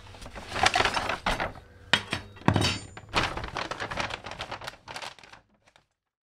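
Foil-lined shopping bag crinkling and rustling in clusters as art supplies are pulled out of it, with a solid thunk about two and a half seconds in as an item is set down on the wooden tabletop. The sound cuts to silence a little over five seconds in.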